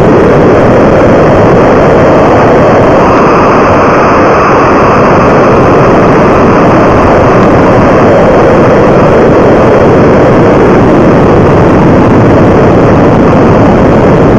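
Loud, steady rushing of air over the onboard camera's microphone on a model rocket climbing and coasting after liftoff, an even roar that does not change through the flight.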